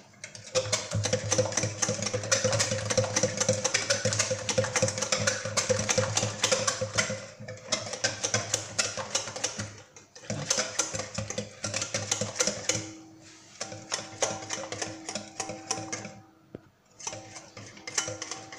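Wire whisk beating zlabia batter in a glass bowl, rapid clicking and scraping against the glass, stopped by a few short pauses. The batter is being whisked smooth to break up lumps of flour.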